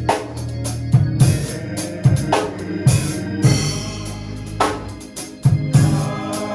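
Church band music: a drum kit with bass drum, snare and cymbals playing over a sustained low bass line.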